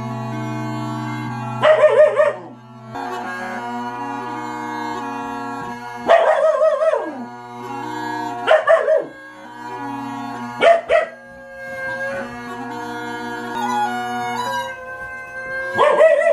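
Bagpipe playing a steady drone under a chanter melody, while a Siberian husky puppy howls along in short wavering bursts, about five times; the howls are the loudest sounds.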